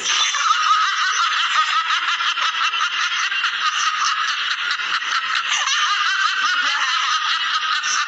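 High-pitched, unbroken giggling laughter.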